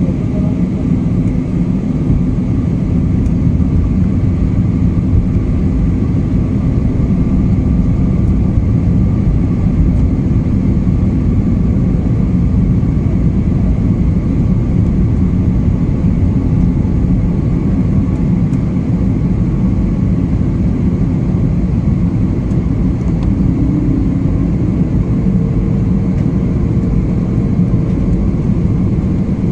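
Steady jet airliner cabin noise: engine rumble and airflow hiss, with faint steady whines. A new whine joins near the end.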